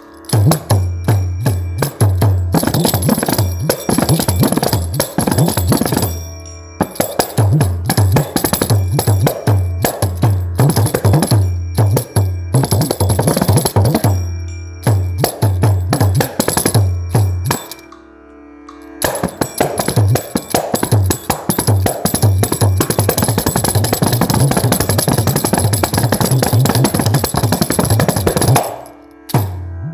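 Kanjira (South Indian frame drum with a single jingle) played in a thani avarthanam, the solo percussion section that follows the pallavi. Fast finger strokes mix deep bass tones with bright jingle shimmer, in rhythmic phrases with short breaks, the longest of them about two-thirds of the way through.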